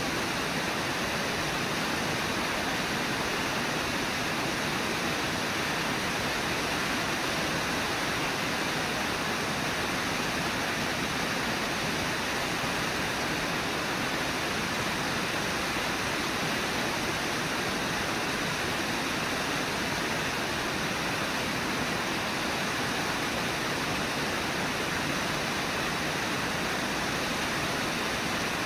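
Brooks River rushing steadily: an even, unbroken wash of water noise.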